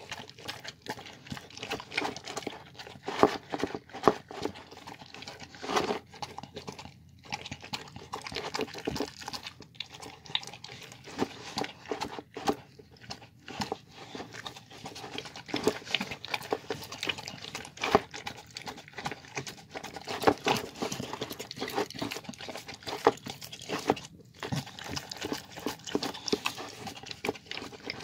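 A dog eating cooked rice and chicken from a bowl: a continuous run of irregular chewing, smacking and mouthing sounds.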